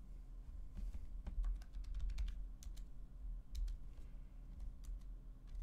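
Thumb-typing on the PinePhone Pro's clip-on hardware keyboard case: small plastic key clicks at an irregular pace.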